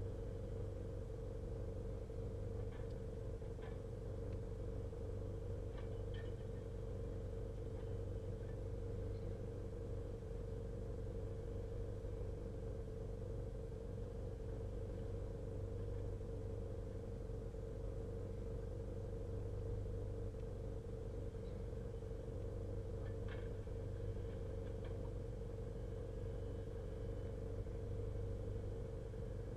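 Steady low engine hum heard from inside a vehicle cab, with a few faint knocks here and there.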